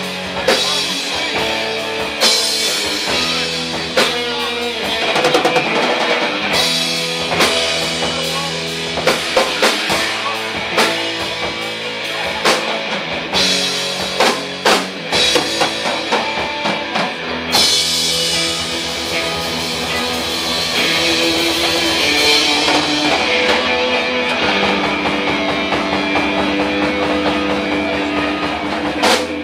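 Live rock band playing an instrumental passage without vocals: electric guitars and bass guitar over a drum kit.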